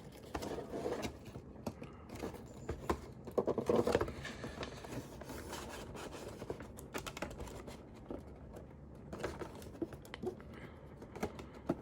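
Action figure box being worked open by hand: scattered clicks, taps and rustles of cardboard and plastic packaging, with two louder rustling scrapes in the first four seconds.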